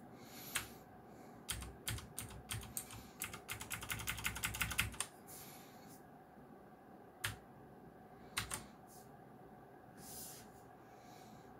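Keys pressed on a Geekstar × Deck Hassium Pro 108 mechanical keyboard with blue clicky switches: a run of quick keystrokes from about a second and a half to five seconds in, then a few single presses.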